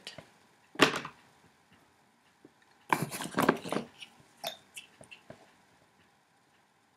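Handling noises close to the microphone as a glass-jar candle and painting things are moved: a sharp knock about a second in, a longer burst of rustling and clatter around three seconds in, then a few light clicks.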